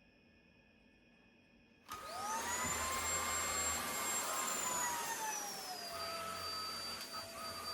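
A vacuum cleaner switches on about two seconds in. Its motor whine rises quickly to a high steady pitch, then drops to a lower steady whine a few seconds later.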